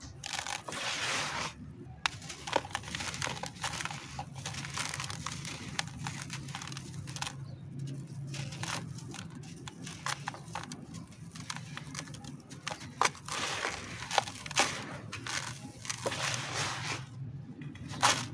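Dry, dusty concrete lumps crushed and crumbled by hand: gritty crunching with many sharp crackles, and grit trickling back into the tub.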